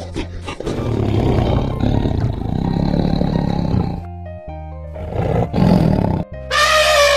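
Tiger roaring over background music, then an elephant trumpeting near the end, one loud, long call.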